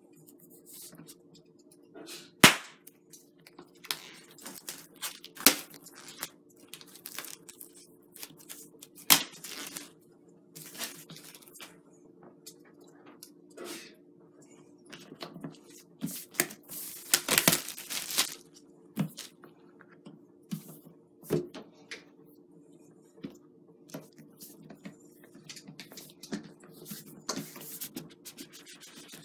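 Plastic shrink wrap being torn and peeled off a cardboard box: irregular crinkling and crackling with sharp snaps, the sharpest about two and a half seconds in and a busy stretch a little past halfway, over a steady low hum.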